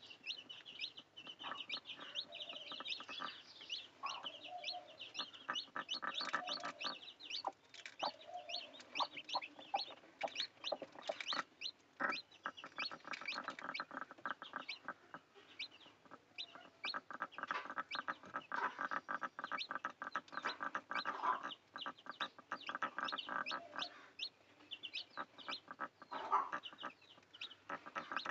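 Chickens clucking, with chicks cheeping in quick high chirps throughout.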